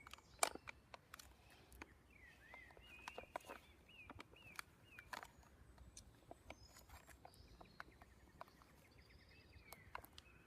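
Plastic toy packaging crinkling and clicking in the hands as it is pried open, a scatter of sharp clicks with the loudest about half a second in. A songbird sings a run of short repeated chirps from about two seconds in, with fainter notes near the end.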